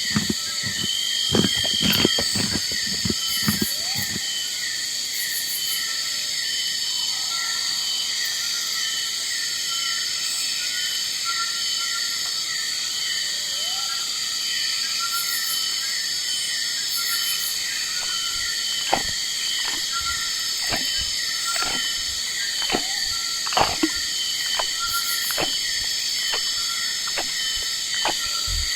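Steady insect chorus of high buzzing with a fast, even pulsing chirp, like crickets or cicadas. Sharp clicks and snaps cut in near the start and again about twenty seconds in.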